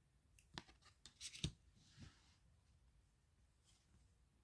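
Faint rustles and soft clicks of tarot cards being handled and turned over, about half a dozen small sounds in the first two seconds, then near silence.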